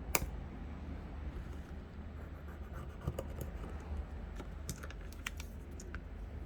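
Small clicks, taps and light scratching from handling phone parts and tools at a workbench, with one sharp click just after the start.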